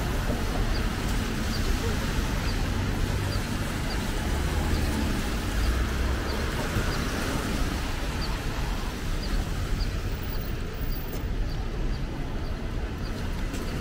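City street traffic on wet pavement: a steady hiss of tyres and a low engine rumble from passing cars, with a faint high tick repeating about twice a second.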